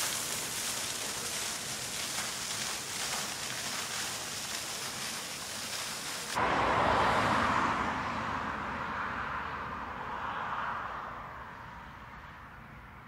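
Fountain water splashing as a steady hiss. About six seconds in it cuts abruptly to a Volkswagen e-Golf electric car passing close by, only tyre and wind noise, dying away over several seconds.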